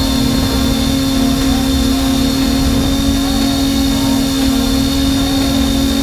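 Force1 F100 Ghost quadcopter's motors and propellers running with a steady, even whine over a rough low rumble.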